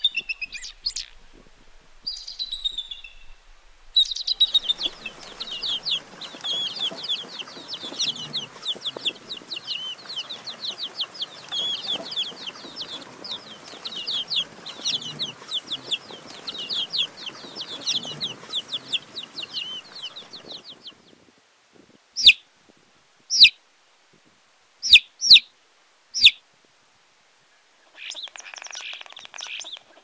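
Small birds chirping rapidly and without pause over a soft background hiss, then a handful of short, sharp separate calls near the end.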